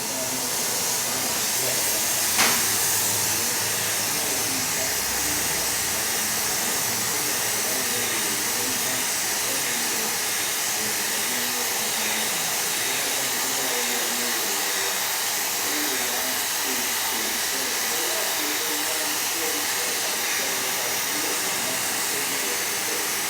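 A loud, steady rushing hiss starts abruptly and runs on unchanged, with one sharp click about two and a half seconds in and a voice faint underneath.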